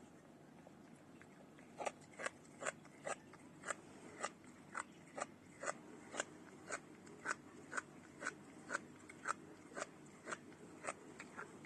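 Cat crunching dry kibble: short, sharp crunches at about two a second, starting about two seconds in.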